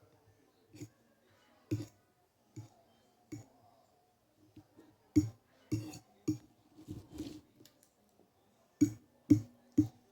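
Cutlery clinking and scraping on a plate, in scattered taps that come closer together in the second half, with three louder knocks in quick succession near the end.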